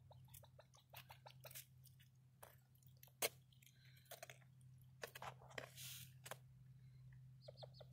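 Ruffed grouse giving a series of soft, short clucks and clicks, with one sharper click a little over three seconds in.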